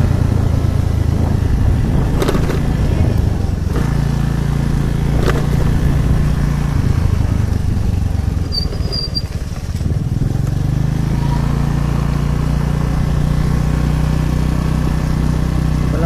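Motorcycle engine running steadily while riding. Its pitch shifts about four seconds in, it eases off briefly just before ten seconds in, and it picks up again. Two light knocks come at about two and five seconds in.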